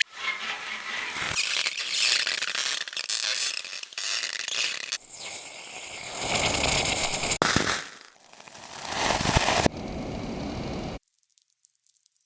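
A run of separate extreme-temperature sound effects, hot material meeting water or ice: stretches of hissing and sizzling that start and stop abruptly, one swelling up and cutting off sharply. Near the end it drops away to thin, high ringing tones.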